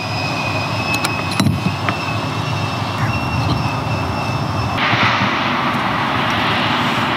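A few hammer blows knocking on a bronze boat propeller in the first two seconds, over a steady rumbling drone with faint high whistling tones that changes abruptly about five seconds in.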